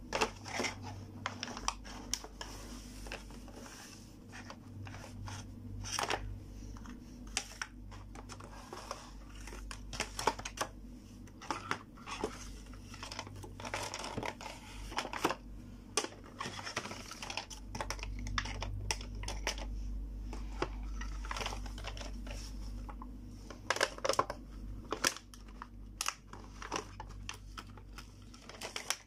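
Clear plastic blister packaging of a toy kitchen set crinkling and crackling as it is handled and pulled open, with many sharp clicks of small plastic toy pieces.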